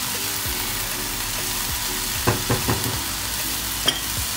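Chopped onion and butternut squash sizzling in a frying pan with a little water, stirred with a spatula. A few quick knocks of the spatula against the pan come a little past halfway, and another near the end.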